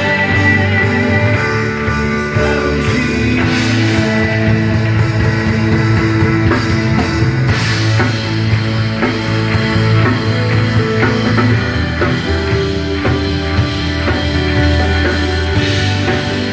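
A band plays a rock-style worship song, with drum kit and guitar over steady bass notes.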